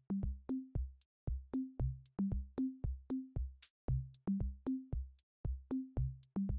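Background music: an electronic drum-machine beat of deep kick-drum thuds and higher pitched drum hits, about four a second.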